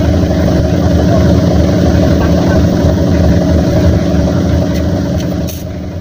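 Crawler excavator's diesel engine running steadily, a deep even drone that gets a little quieter near the end.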